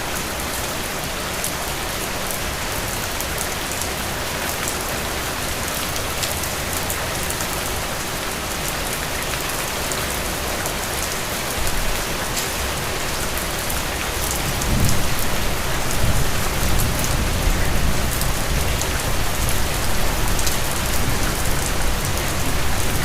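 Steady rain falling on a surface, a dense hiss with scattered sharp drop ticks. About halfway through, a deep low rumble comes in and grows louder.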